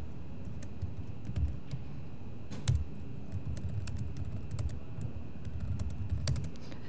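Typing on a laptop keyboard: scattered keystrokes with a few louder key taps.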